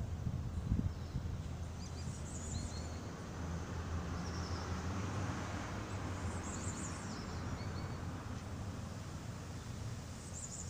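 Outdoor ambience: small birds chirping in short clusters of quick high notes every few seconds over a steady low hum.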